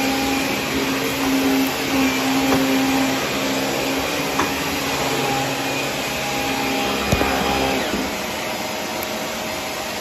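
Shark upright vacuum cleaner running steadily as it is pushed over a hardwood floor, its motor humming under the suction noise. A sharp knock about seven seconds in.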